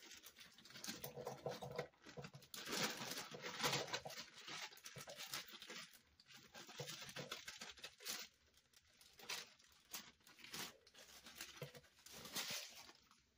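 Plastic bag of baby carrots rustling and crinkling in irregular bursts as the carrots are shaken out of it into a slow cooker.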